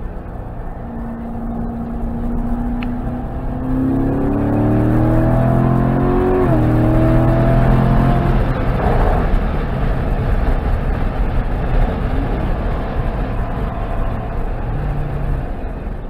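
Corvette C7 Grand Sport's 6.2-litre V8 pulling hard under full throttle, its pitch climbing, dropping sharply at a gear change about six and a half seconds in, then climbing again before easing off, heard from inside the car with wind and tyre noise.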